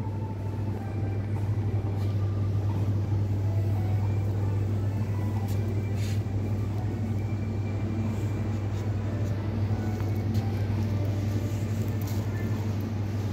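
Steady low hum of a supermarket's building machinery, with a few faint clicks and soft background store sounds.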